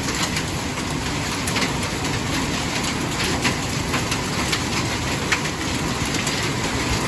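Hard thunderstorm rain pouring down steadily with hail mixed in, scattered sharp taps of hailstones striking through the hiss of the rain.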